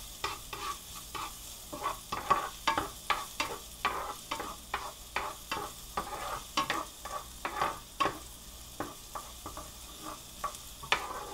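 Minced garlic sautéing in a hot nonstick frying pan, stirred with a spatula: many irregular scrapes and taps of the spatula on the pan over a steady sizzle.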